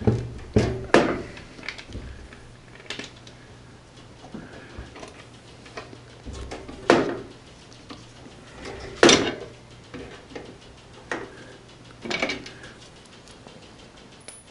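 Irregular metallic clanks and knocks of hand tools and metal parts at an oil boiler's swing-out burner door as its screws are taken out, about ten sharp hits with the loudest about seven and nine seconds in. A faint steady low hum runs beneath.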